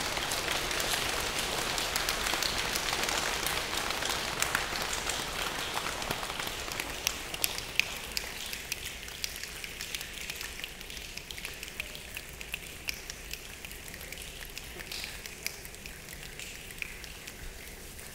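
Hands of a group: a dense patter of clapping thins out over the first half into scattered sharp claps or snaps, then fades to a soft hiss.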